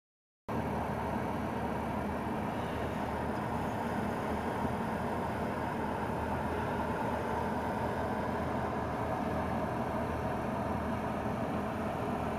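Steady car engine and road noise, cutting in abruptly about half a second in and holding an even level throughout.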